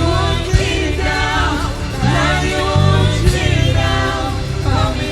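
Gospel song with singers and a choir over a backing band: held, bending sung notes over steady bass.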